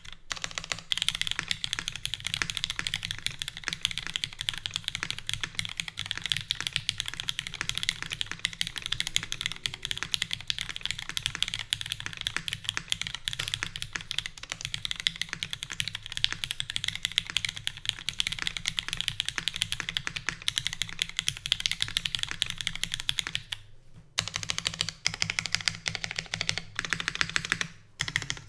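Fast, continuous typing on a Keycult No.2 mechanical keyboard with lubed, filmed retooled Cherry MX Black linear switches, a full aluminium plate, no foam and GMK keycaps: a dense stream of key clacks, broken by two brief pauses near the end.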